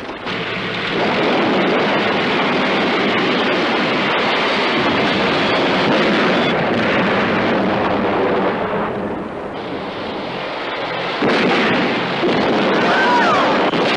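Battle sound effects in a war film: a dense, continuous rumble of explosions, easing a little in the middle and swelling again about eleven seconds in.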